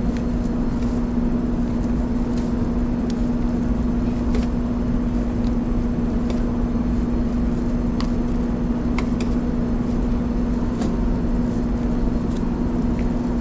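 A steady machine hum with a constant low tone, with a few light clicks of metal tongs picking vegetables from stainless-steel prep-table pans.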